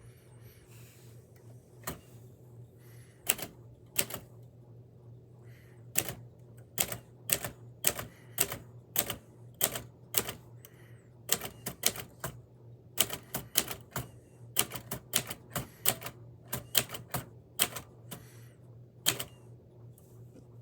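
Manual typewriter being typed on: sharp key strikes in uneven runs, a few a second, starting about two seconds in with short pauses between groups.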